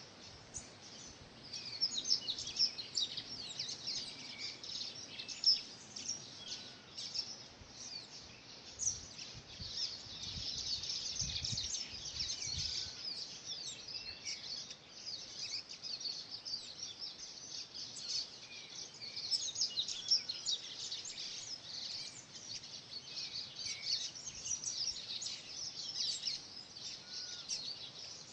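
Many wild songbirds singing and calling at once, a dense stream of short high chirps and trills with a few softer, lower whistled notes among them.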